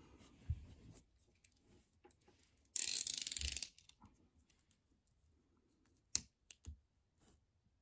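A snap-off utility knife's blade being slid out: a loud burst of rapid ratcheting clicks lasting about a second, about three seconds in. A few single sharp clicks and taps follow near the end.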